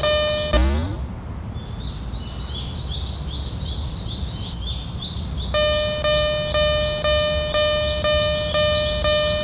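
Japanese level-crossing warning bell ringing "kan-kan", a steady clang of about two strikes a second. About half a second in it breaks off with a thump and a short rising sweep, a rapid high chirping runs for about five seconds, and then the bell starts again.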